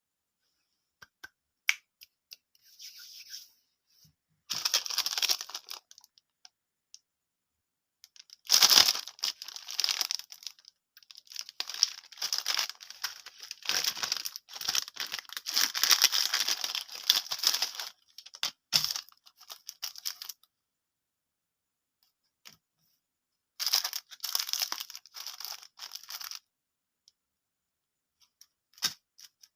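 Plastic candy wrappers crinkling and tearing open in handled bursts: a short one about five seconds in, a long stretch of rustling from about nine to twenty seconds, and another near twenty-four seconds, with dead silence between.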